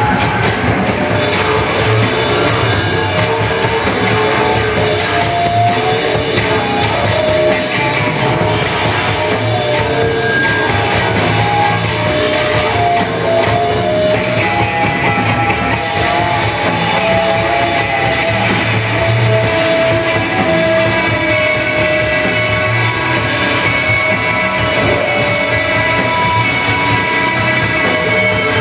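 Sludge metal band playing live: electric guitars over a drum kit, with long held notes carried through much of the passage.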